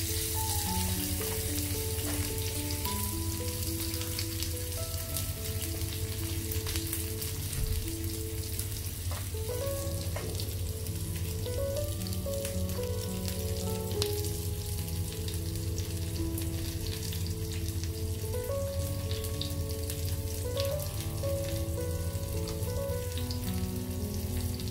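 Marinated pomfret sizzling and crackling steadily in coconut oil on a hot ridged grill pan, under quiet background music.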